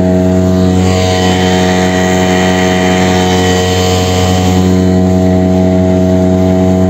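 Outboard motor running steadily at speed, driving an inflatable boat across open water.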